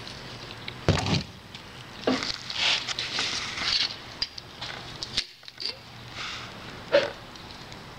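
Paint can, stir stick and plastic mixing cup being handled on a workbench: a dull thump about a second in, a stretch of scraping and rustling, small clicks, and a sharp knock near the end.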